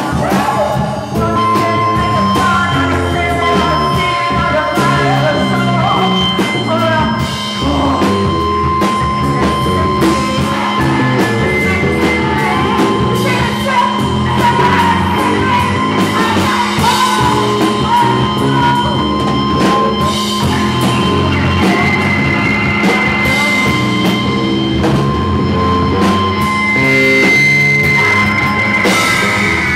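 Loud live noise-rock band: distorted electric guitar, drums and vocals over a steady low drone. Thin high whining tones are held through the middle and last part.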